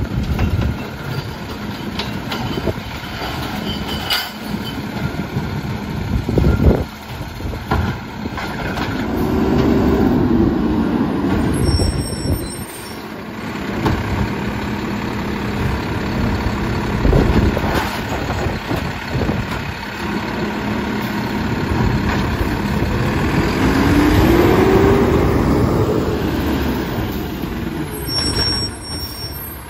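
Mack LEU garbage truck with a McNeilus automated side-loader arm emptying wheeled carts: the diesel revs up and falls back twice to drive the hydraulic arm. Sharp knocks and bangs come as the carts are gripped, tipped into the hopper and set back down.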